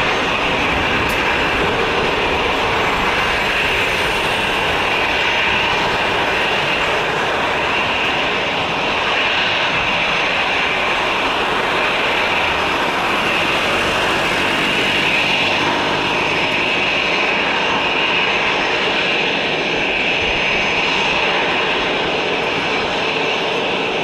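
Jet airliner's turbofan engines running steadily as it taxis on the ground: a continuous high whine over a broad rushing noise.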